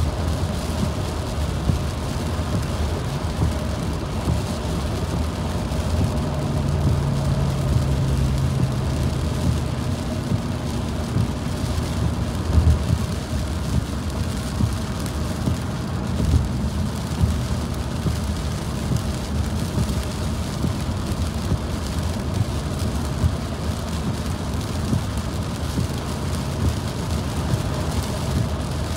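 Steady road noise of a car driving on a wet highway in the rain, heard from inside the cabin: tyre hiss on the wet road and engine hum, with rain falling. A couple of short low thumps stand out about 12 and 16 seconds in.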